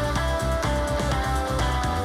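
Background music: a rock track with guitar over a steady beat.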